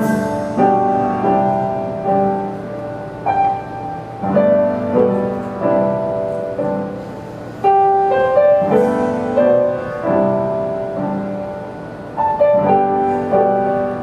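Piano accompaniment playing a slow introduction of struck chords and melody notes, each ringing and fading before the next phrase.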